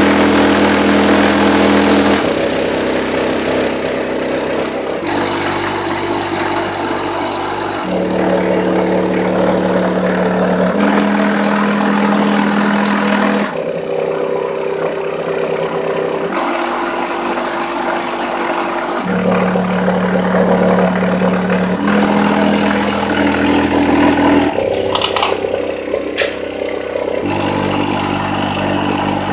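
Bass-heavy music played loud through a bare car-audio subwoofer sitting out of its enclosure, driven by a car amplifier. Long held bass notes change every two to three seconds, with a couple of sharp clicks about 25 seconds in. The woofer is pushed near its limit, 'casi pidiendo clemencia'.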